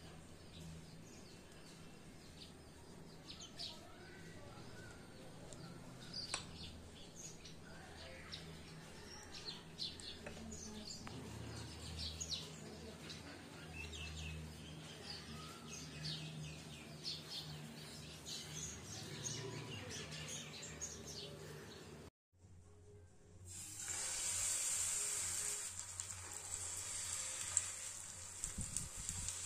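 Small birds chirp faintly in the background over a low hum. After a sudden cut to silence about 22 seconds in, wheat-flour batter sizzles steadily in hot oil in a non-stick frying pan, and this steady hiss is the loudest sound.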